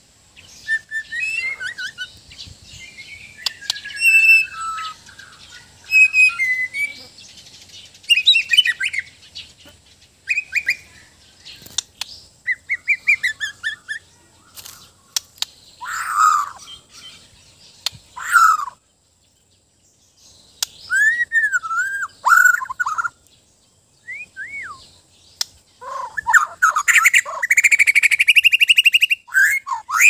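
Bornean white-crowned shama singing: varied whistled phrases with rising and falling glides, broken by short pauses and sharp clicks, ending in a loud, fast trill near the end.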